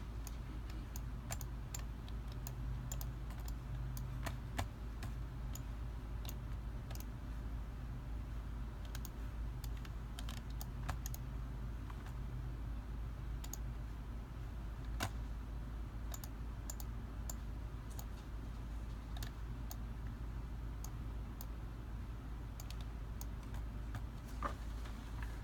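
Irregular clicks of a computer mouse and keyboard, sometimes several in quick succession, over a steady low hum.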